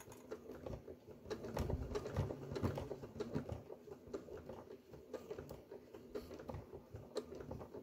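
Domestic sewing machine stitching slowly through thick layers of fabric at the end of a zipper, a soft irregular ticking of needle and feed rather than a steady run.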